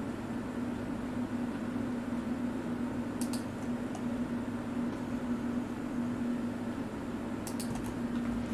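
Steady low electrical hum and hiss of room noise, with a faint high tick about three seconds in and another near the end.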